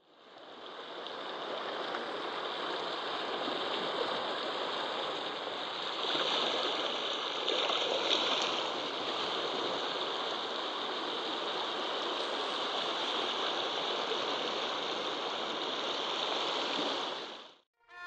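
Small sea waves lapping at the shore, a steady wash of water noise that fades in at the start and cuts off abruptly near the end.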